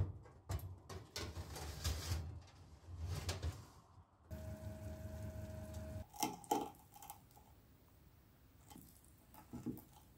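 A metal baking tray is slid onto an oven rack, scraping and clanking for about four seconds. The oven then gives a steady hum with a clear tone for a couple of seconds, ending in a few sharp clicks, and fainter clicks follow near the end.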